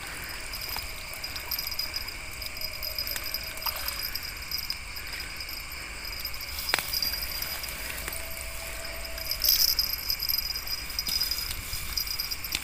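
Steady high chorus of night insects over a low wash of flowing river water, with a few scattered clicks and a sharp click about seven seconds in.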